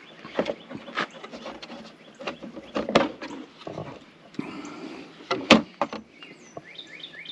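An RV electrical hookup pedestal being handled: scattered clicks and knocks from its hinged cover, the sharpest about five and a half seconds in.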